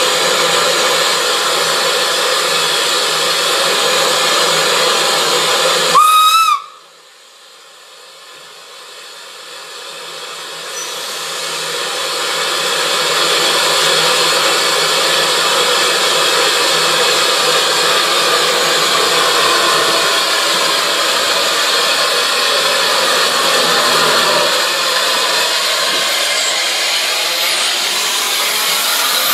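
Narrow-gauge steam locomotive hissing loud and steady with escaping steam, then about six seconds in a short steam-whistle blast. The steam cuts off suddenly after the whistle, then the hiss builds back up over several seconds and holds steady.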